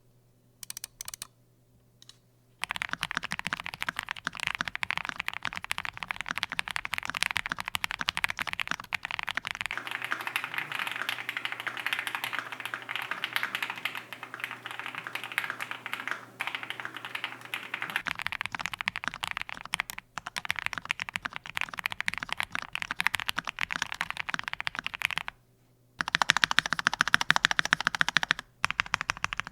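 Typing on an Akko SPR67 spring-mounted mechanical keyboard with Gateron Ink Black linear switches, lubed with 205g0 and dielectric grease. A few single keystrokes, then a long run of rapid typing, broken by two short pauses near the end, with the last stretches louder and brighter.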